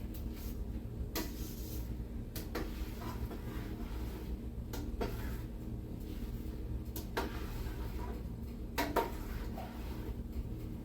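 A Vitamix blender jar being handled over a saucepan while thick vegetable puree is emptied out, giving a few scattered light knocks and clunks. A low steady hum runs underneath.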